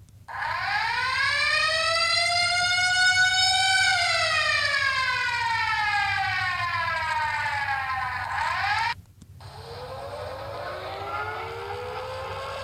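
Siren sound effect played from a phone noise app: a wailing tone rises for about four seconds, falls for about five, then cuts off abruptly. About a second later a second wail begins to rise slowly.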